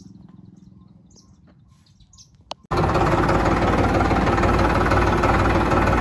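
Faint bird chirps over a low hum, then, after a click about two and a half seconds in, the sound cuts suddenly to a Farmtrac 60 tractor's diesel engine running loud and steady as the tractor is driven, heard from the driver's seat.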